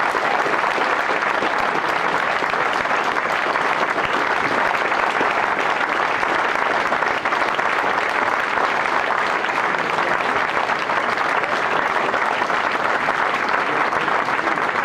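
Audience applauding steadily, a sustained round of clapping at even strength throughout.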